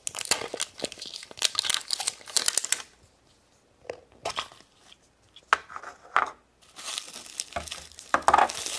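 Thin plastic wrapping crinkling and tearing as it is peeled off a plastic surprise egg, then a few separate clicks as the plastic egg halves are pried apart. Near the end, the clear plastic bag around the toy inside crinkles again.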